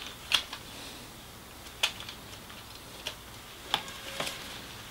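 A handful of light, sharp clicks and taps, spread out over a few seconds, as the staple magazine of a Parkside PET 25 electric nailer-stapler is handled and slid back into the tool.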